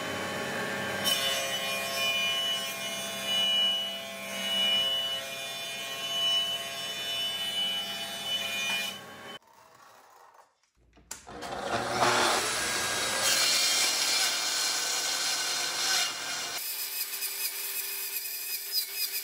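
A thickness planer running steadily as a board feeds through it. After a short quiet pause, a Festool TS 75 EQ plunge track saw spins up with a rising whine and cuts through a thick wooden board.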